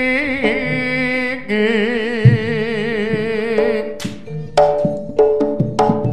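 Javanese jaranan gamelan music: a long, wavering melody line held for about four seconds, then sharp percussive strikes with ringing tones take over.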